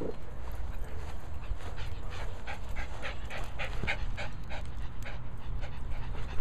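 A small terrier panting rapidly close to the microphone, about three to four quick breaths a second.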